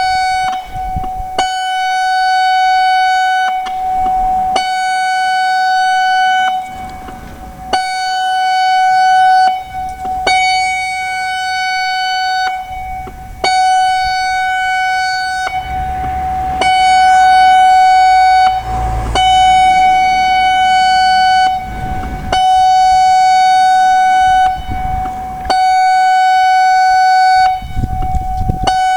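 Severnside warning siren sounding its test: one steady, unwavering high tone, rich in overtones, broken by short gaps every two to three seconds.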